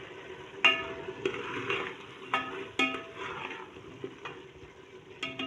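Potatoes and green beans being stir-fried in masala in a metal pressure cooker with a spatula: a steady sizzle, broken by several knocks of the spatula against the pot that ring briefly.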